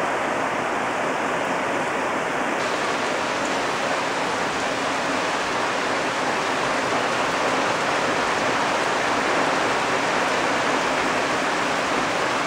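Heavy rain pouring steadily onto leaves and foliage: a loud, even hiss.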